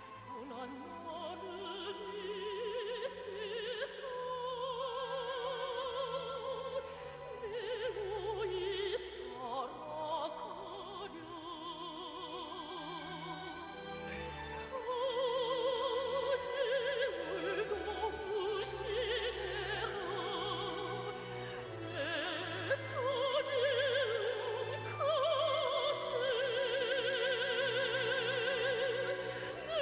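Operatic singing in a high voice with wide vibrato over an orchestra. It grows louder about halfway through.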